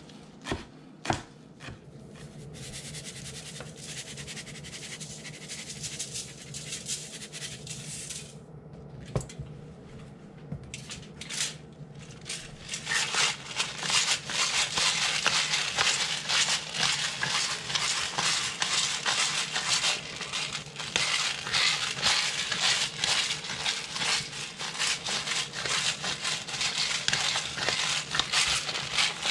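A cleaver chops on a wooden cutting board a few times at the start. From about halfway through, a hand-held spice grinder grinds continuously, a dense crackling that is the loudest sound.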